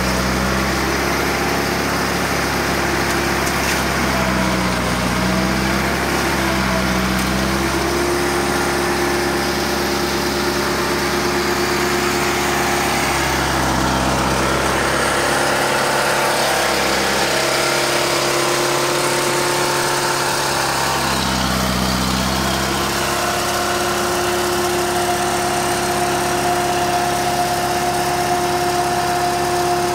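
Diesel engine of a red Romanian farm tractor running steadily under load while driving a corn chopper, its note shifting a few times.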